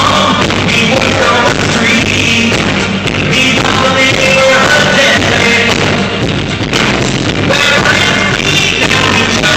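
Loud live rock band music with a male lead singer and accordion.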